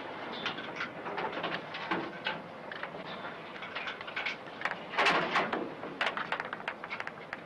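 Shrimp trawl net and its chains being hauled aboard a fishing cutter: irregular clanks and knocks over a steady rush of water, with a louder splash about five seconds in.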